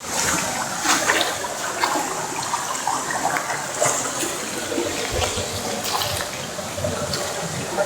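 Waterfall water rushing steadily, with irregular splashes.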